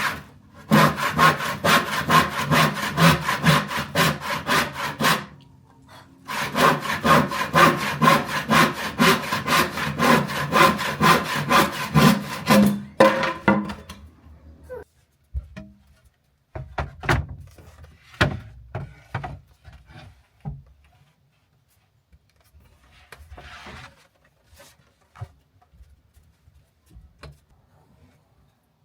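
Hand saw cutting through a pine slat in quick, even back-and-forth strokes, in two long runs with a short pause between. The sawing stops about halfway through, and a few separate knocks of wood being handled follow.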